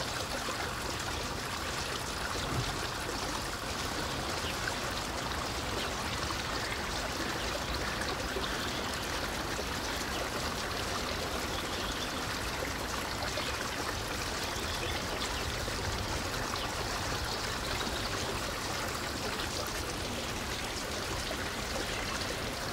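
Steady rushing noise of running water, even throughout with no distinct knocks or calls.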